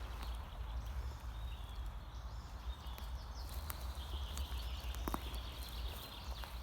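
Footsteps crunching on dry leaves and twigs, with scattered snaps, over a steady low rumble. A small bird sings a thin, high warbling song from about two seconds in.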